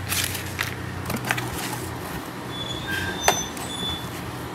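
Hands rummaging in a cardboard box: rustling and light knocks, with a few brief squeaks and a sharp click about three seconds in, over a steady low hum.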